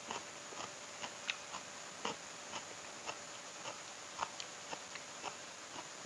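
Close-miked chewing: quiet wet clicks of the mouth and jaw about twice a second as a man chews a mouthful of fried catfish and rice.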